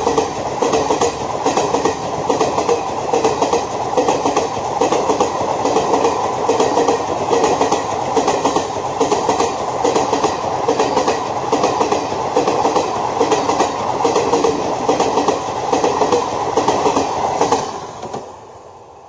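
Maharaja Express luxury passenger coaches passing close by at speed: a steady rumble with a regular clickety-clack of wheels over rail joints. The sound drops away sharply near the end as the last coach goes by.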